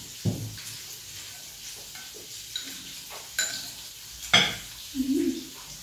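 Spoons clinking and scraping against ceramic bowls while eating, with a dull knock of a glass set down on the table just after the start. The loudest, ringing clink comes a little past halfway, followed by a brief low hum.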